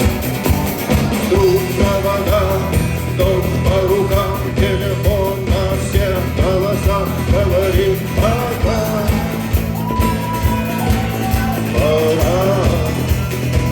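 Rock music: a full band with a steady drum beat and bass under a wavering, sliding lead melody.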